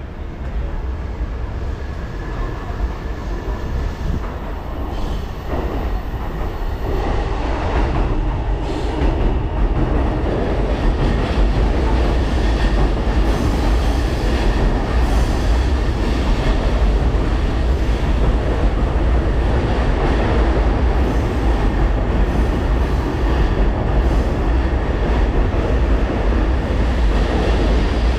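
Electric train running on the rails: a loud, steady rumble with wheel and track noise that builds over the first ten seconds or so and then holds steady.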